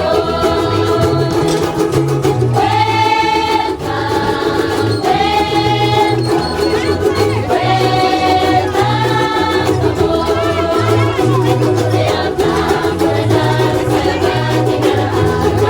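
Music: a song with a steady repeating bass line and long held melody notes, some of them possibly sung.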